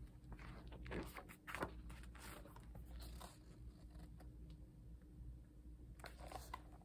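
Faint rustling of a large photobook's heavy paper pages being handled and turned, a few short rustles and scrapes, the last near the end.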